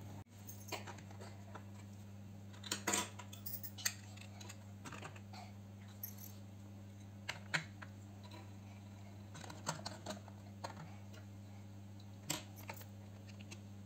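Small plastic dollhouse furniture being set down and fitted into a plastic dollhouse on a wooden table: scattered light clicks and knocks, over a steady low hum.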